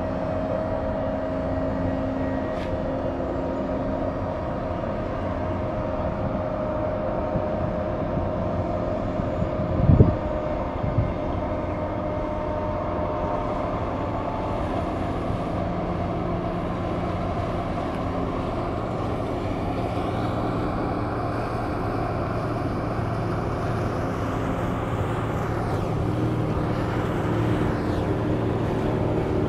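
Steady engine drone from vessels under way, a departing crude oil tanker and a small motorboat, with several low hums and a thin whine that fades out around the middle. A single dull thump about ten seconds in, and faint gliding tones near the end.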